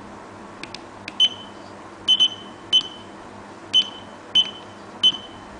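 Push buttons on a homemade Arduino digital alarm clock clicking as its menu is stepped through, each press answered by a short, high beep from the clock's buzzer; about seven presses come at uneven intervals, two of them in quick succession about two seconds in.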